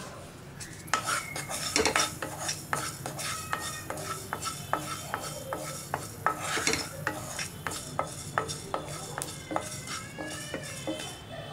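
Wooden spatula stirring quinoa seeds as they dry-roast in a nonstick pan: irregular sharp clicks and scrapes of the spatula and seeds against the pan, starting about a second in.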